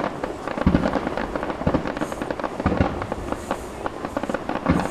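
A fireworks display going off: dense, rapid crackling and popping, with heavier deep bangs about once a second.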